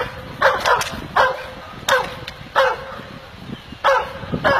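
Pit bull barking in single sharp barks, about seven, at an irregular pace, each dropping quickly in pitch, aimed at a decoy in a bite suit during protection training.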